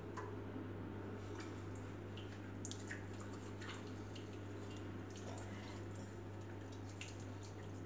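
Wet hands scrubbing a gritty homemade face-pack paste off the skin, faint squelching rubs with scattered small drips and ticks into a glass sink, over a steady low hum.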